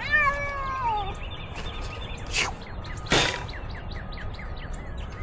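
A cat meowing: one drawn-out meow that falls in pitch, about a second long, at the start. About two and three seconds in come two short rushing noises.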